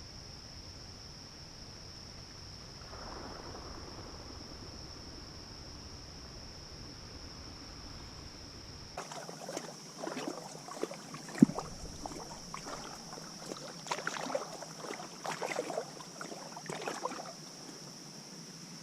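Steady high-pitched insect trill over a faint outdoor background. About halfway, irregular knocks, clicks and rustles of handling start, with one sharp knock among them.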